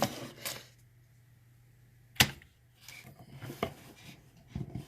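A few sharp clicks and knocks of hands handling the lock, tools or camera setup, the loudest about two seconds in.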